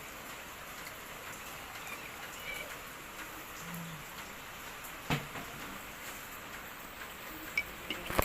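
Hot water being poured into a glass of powdered drink mix: a steady splashing hiss, with a single knock about five seconds in and a few clicks at the end.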